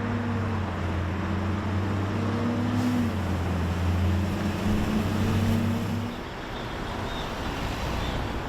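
Street traffic noise with a motor vehicle's engine running close by, a steady low hum that drops away about six seconds in.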